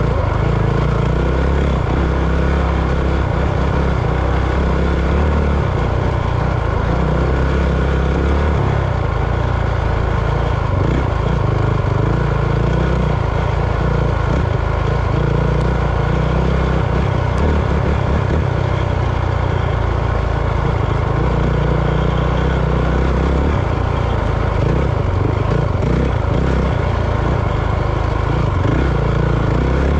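A motor vehicle's engine running steadily at a constant level, with a heavy low rumble.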